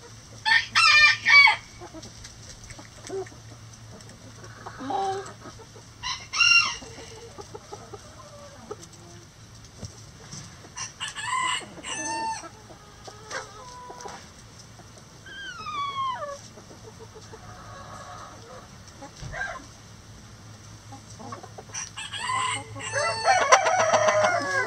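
Backyard chickens clucking and calling in short loud bursts every few seconds, one call sliding downward in pitch midway, and a rooster crowing near the end.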